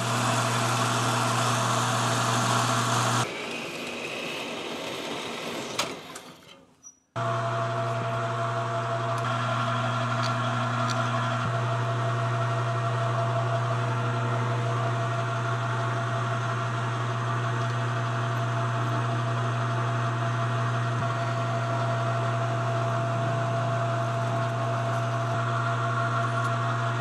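Metal lathe running steadily while turning a small metal ferrule. About three seconds in its sound drops and dies away over a few seconds, as when the machine is switched off and coasts to a stop. It is running steadily again from about seven seconds.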